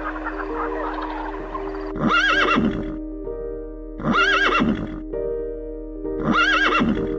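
A horse whinnying three times, the same short neigh recurring about every two seconds, over background music.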